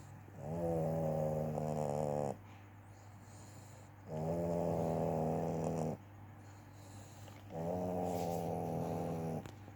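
Domestic cat snoring: three snores, each about two seconds long, coming roughly every three and a half seconds, with quieter breaths between.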